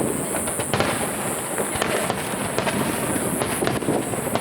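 Fireworks crackling: a dense, continuous run of many small sharp pops at an even loudness, with no single big bang standing out.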